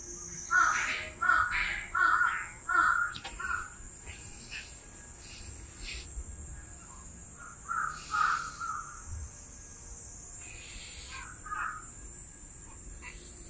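Crow cawing: a run of about five harsh caws in quick succession at the start, two more a little past the middle and a single one near the end, over a steady high-pitched hiss.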